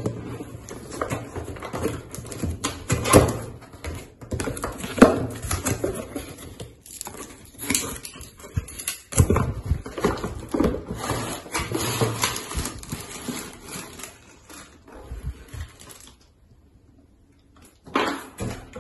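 Cardboard packaging being handled and unpacked: rustling and scraping with several sharp knocks, the loudest about 3 and 5 seconds in. It goes quiet about 16 seconds in, and a brief clatter follows near the end.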